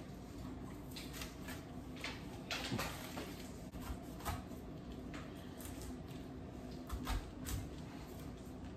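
A kitchen knife cutting through a whole pineapple on a granite countertop: scattered knocks and crunches as the blade works through the tough rind and the fruit bumps the counter, over a faint steady low hum.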